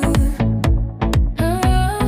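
Background music: an electronic dance-pop track with a steady kick-drum beat under a held melodic line.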